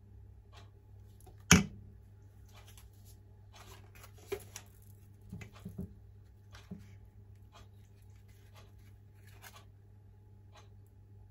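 Kitchen handling sounds as batter is ladled into banana-leaf cups over a steel bowl and steamer tray: one sharp knock about one and a half seconds in, then a few softer knocks and scrapes around the middle. Underneath run a steady low hum and a faint tick about once a second.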